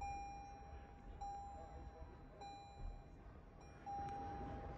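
A car's electronic warning chime from the cabin of a 2022 Lexus GX 460, sounding over and over: one steady mid-pitched tone held for about a second at a time with short breaks, about four times.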